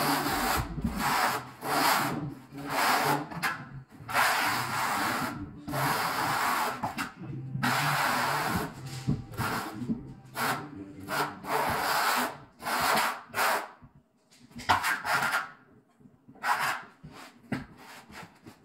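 A hand float rubbed back and forth over orange Ditra plastic uncoupling membrane in repeated scraping strokes, about one a second, pressing the membrane down into the thinset beneath. A short pause comes about three-quarters of the way through.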